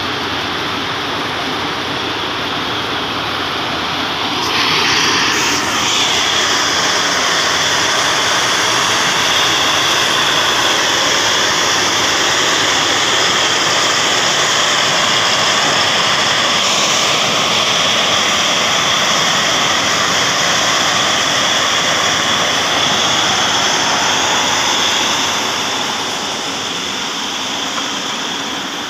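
Stone-crushing plant with a jaw crusher running: a loud, steady mechanical noise with a high hiss. It grows louder about four seconds in and eases off near the end.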